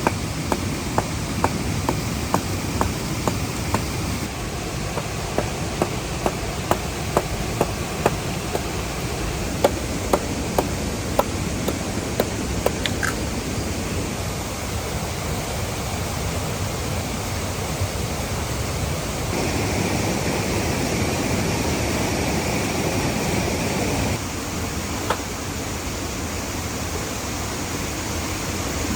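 Waterfall rushing steadily. Through the first half comes a run of sharp knocks, about two a second, with a few stray ones later.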